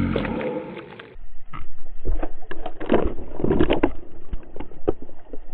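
Hooked pike thrashing at the surface, a quick irregular run of slaps and splashes close to the microphone, starting about a second in. Before that, a steady pitched sound fades out.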